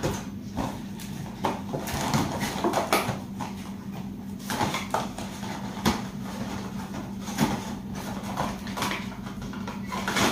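Small cardboard LED-bulb boxes being handled and opened: irregular rustling, crinkling and light tapping of the packaging as the bulbs are taken out, over a steady low hum.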